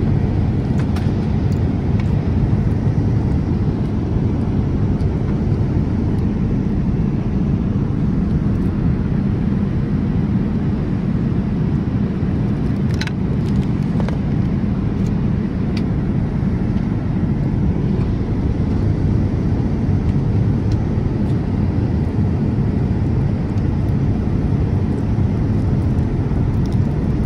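Steady low rumble of an airliner's cabin in flight, the constant noise of engines and rushing air, with a few faint clicks here and there.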